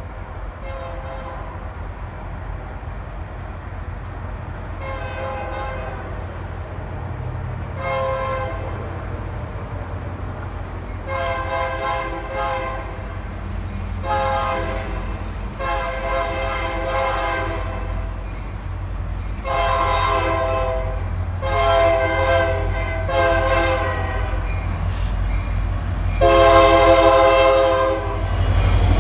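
Freight locomotive air horn sounding a series of blasts, some short and some about a second long, growing steadily louder as the train comes on. Under the horn runs a steady low rumble from the locomotive and train.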